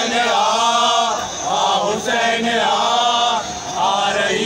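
Male voices chanting a Shia mourning chant (nauha) for Imam Hussain, in drawn-out sung phrases of about a second each.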